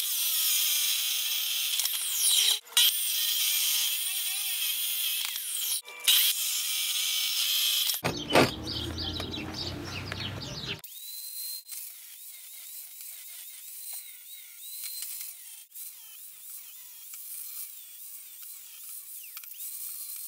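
Steel angle being cut with abrasive power tools: a DeWalt abrasive chop saw's cut-off wheel grinding loudly through the metal for the first eight seconds, with two short breaks. After a break about eight seconds in, an angle grinder runs with a quieter, wavering whine as it cuts the steel.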